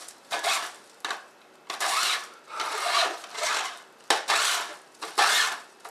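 Magnetic tape being pulled by hand out of a VHS videotape cassette, rasping and crinkling as it comes off the spool, in repeated pulls about one a second.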